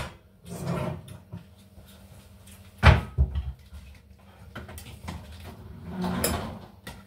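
Kitchen clatter of a cupboard and a stainless steel pot being handled on a stone countertop, with a loud knock about three seconds in and a second, lighter one right after.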